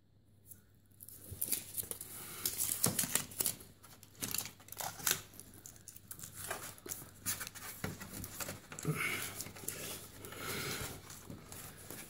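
Aluminium foil HVAC tape crinkling and scraping as a hand presses and smooths it into place. The crackles and rustles come irregularly, starting about a second in.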